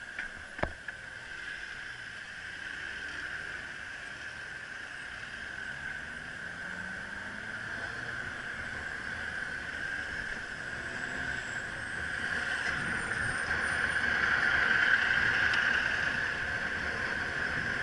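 B Smart electric bicycle climbing a steep street among cars: a steady high whine that swells about two-thirds of the way through, over a low traffic rumble, with one sharp click about half a second in.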